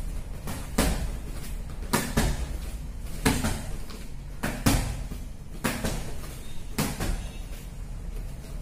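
Boxing gloves smacking together as a jab is thrown and parried or countered in a partner drill: sharp slaps about once a second, some louder than others.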